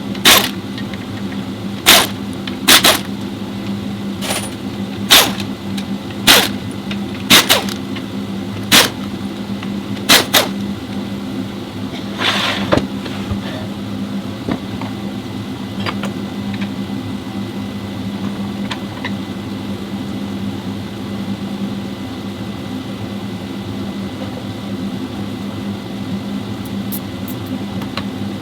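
Workshop sounds: a steady machine hum, with about a dozen sharp knocks in the first ten seconds and a short scraping burst a little later.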